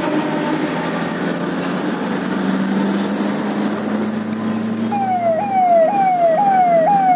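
Steady engine and road noise inside a moving vehicle's cab; about five seconds in, an electronic siren starts, a tone that falls and snaps back up about twice a second.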